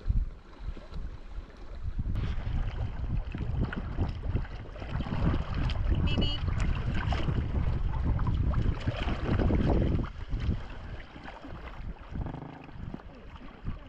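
Wind buffeting the microphone over water lapping and splashing around packrafts being paddled on a loch. The wind rumble eases about ten seconds in.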